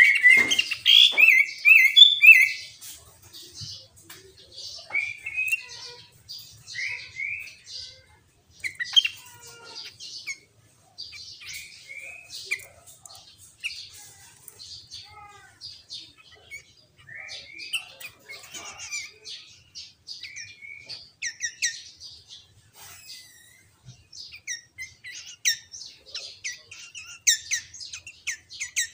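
Sooty-headed bulbul (kutilang) singing, its song laced with mimicked greater green leafbird (cucak ijo) phrases. A loud burst of rapid whistled notes fills the first couple of seconds, then short chirps and whistled phrases follow at intervals.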